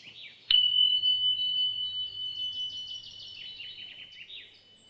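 A single bright chime struck about half a second in, ringing on as one high tone and slowly fading, over light chirping birdsong.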